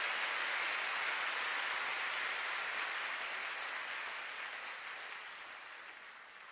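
Concert audience applauding, a dense even clapping that fades away over the last few seconds.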